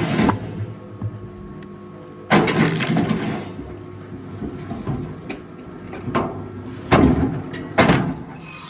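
Rail log splitter at work: a steady machine hum underneath, broken by several loud cracking and knocking bursts of wood splitting and split pieces falling, the biggest about two and a half seconds in and again near seven and eight seconds.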